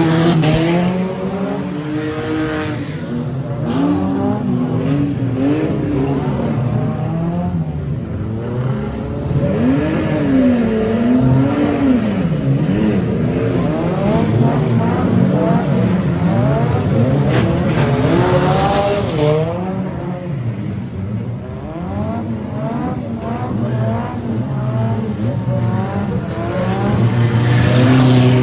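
Engines of several battered bash cars running and revving together on the track, their notes rising and falling and overlapping. A louder, noisier surge comes about eighteen seconds in and again near the end.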